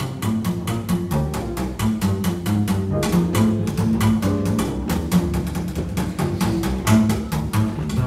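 Live band music played back from cassette tape on a Denon DR-M2 three-head deck, with a strong bass line and a steady beat.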